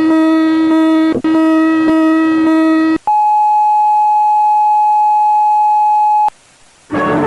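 Synthesized emergency-alert signal: a buzzy low tone with a pulsing, warbling upper part, briefly broken about a second in, gives way about three seconds in to a single steady high-pitched sine tone that cuts off abruptly near the end. Music starts just after.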